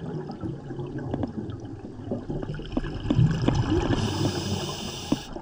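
Underwater water noise: low bubbling and gurgling with scattered small clicks, and a steady high hiss for about a second near the end.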